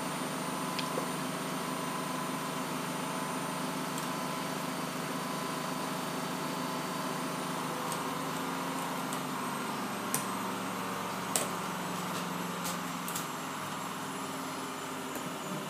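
Steady hum in the room, with a few short sharp clicks of plastic Lego bricks being handled and pressed together, the two loudest past the middle.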